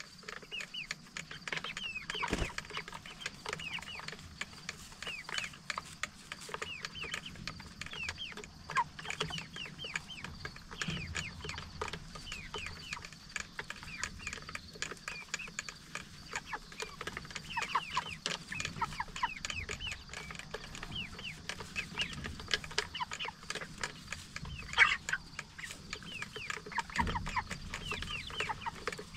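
A flock of six-week-old Cornish Cross broiler chickens peeping and clucking without pause: many short, overlapping, downward-sliding peeps. A single much louder, sharp sound stands out near the end.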